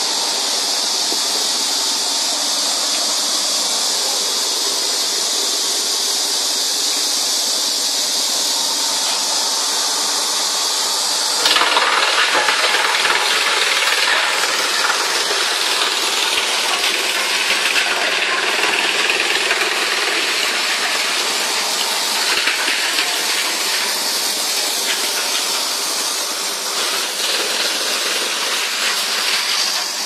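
A 5-8 t/h wood chipper running, a loud, steady, hissing machine noise. About a third of the way in it turns suddenly louder and rougher, with scattered knocks for several seconds.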